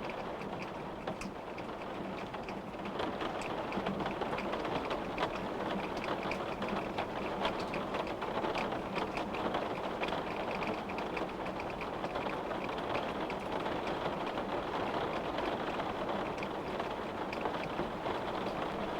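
Steady rain with many small drops tapping on a glass windowpane, a dense patter of fine ticks over an even hiss.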